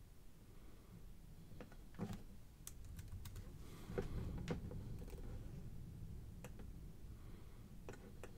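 Scattered clicks and taps of a computer keyboard and mouse, about a dozen, most of them bunched between two and five seconds in, with a couple more near the end.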